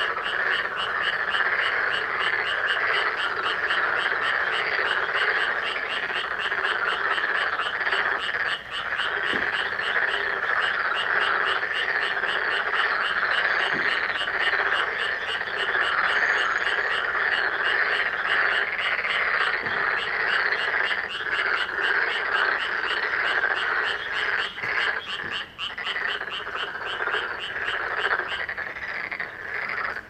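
A dense chorus of many frogs croaking at once from a pond: a steady wall of calls, with a fast run of short repeated calls, about three a second, standing out above it.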